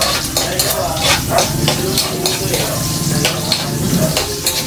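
Garlic and ginger sautéing in hot oil in a wok on a gas burner, sizzling steadily while a metal spatula stirs, scraping and clinking against the pan many times.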